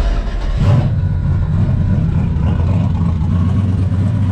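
Turbocharged 5.3-litre LS V8 in a 1964 Chevelle starting up on the key, catching about half a second in, then idling steadily.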